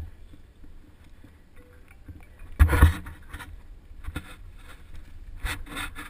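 Mountain bike rolling along a dirt singletrack: a steady low rumble with sudden clattering jolts as it goes over bumps. The loudest comes a little over two and a half seconds in, with a few more near the end.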